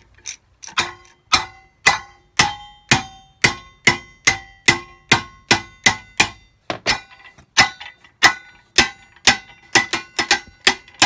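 Hammer blows on a metal part being bent into shape, about two strikes a second with a short metallic ring after each, quickening near the end.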